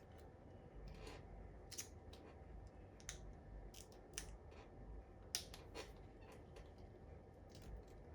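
Faint, irregular light clicks and taps from laptop parts being handled and fitted back together, the sharpest about five and a half seconds in.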